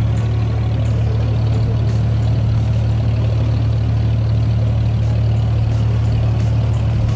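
A motorised abra's diesel engine running steadily under way, a loud, even low drone heard from on board the boat.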